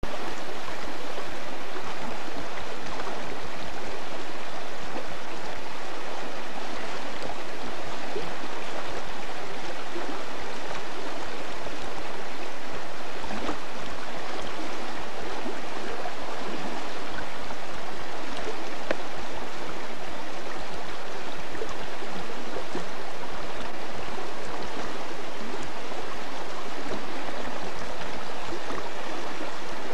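Shallow creek water flowing and rippling over stones: a steady, even rush of running water.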